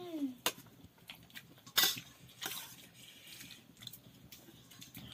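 Metal spoon scraping and clicking against a plate of rice while eating. A louder scrape comes a little under two seconds in.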